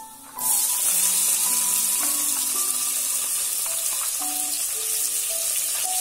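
Chopped onion and garlic dropped into hot mustard oil in a pressure cooker, sizzling loudly and steadily as they start to fry; the sizzle starts suddenly about half a second in.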